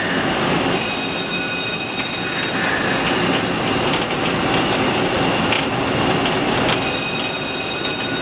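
Mazak Quick Turn QT40 CNC lathe running: a steady mechanical rush with a high-pitched multi-tone whine that comes in twice, from about a second in and again near the end.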